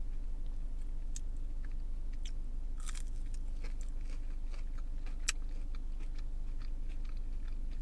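A person chewing a bitten chicken nugget with the mouth closed, a few faint soft clicks of chewing scattered through, over a steady low hum.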